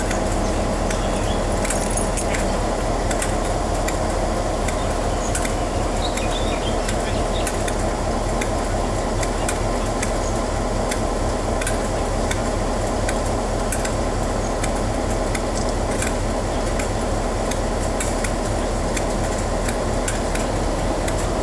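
Diesel-electric locomotive engine idling at a standstill: a steady, even rumble and hum that does not rise or fall, with scattered light metallic clicks and rattles over it.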